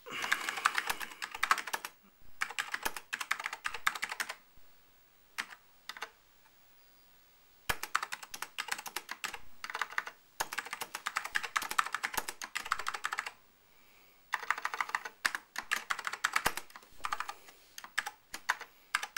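Typing on an Apple IIgs computer keyboard: rapid key clicks in runs of a few seconds, with a pause of about three seconds in the middle broken by a couple of single keystrokes.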